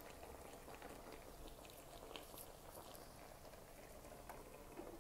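Near silence: a faint simmer from glass noodles cooking in sauce in a skillet, with a few scattered light ticks.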